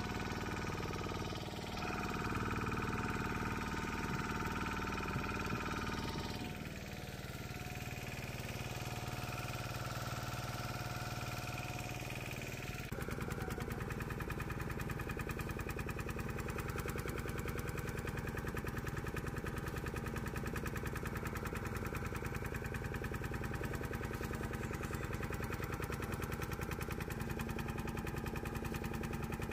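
A small motorboat's engine running steadily with a fast, even pulse. About 13 seconds in the sound changes abruptly and becomes slightly louder.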